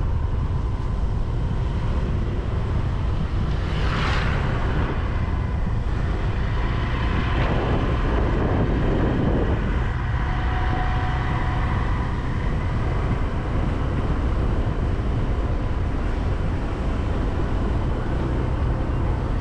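Steady low rumble of a moving vehicle with wind on the microphone, as when riding along a road. A brief whooshing pass comes about four seconds in, and a faint steady tone sounds briefly around the tenth second.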